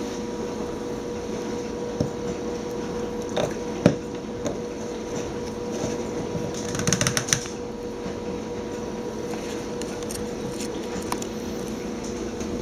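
Clicks, knocks and a short rattle as the PVC-tube HHO cell is handled at its cap and its brass torch fitting is put on. A steady electrical hum runs underneath, from the 50-amp battery charger powering the cell.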